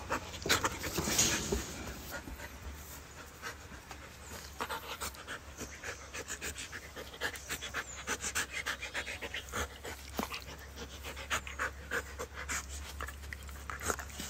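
Siberian husky panting in quick, steady breaths.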